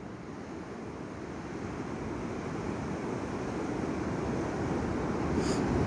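Ocean surf on the beach, a steady rushing wash that grows steadily louder.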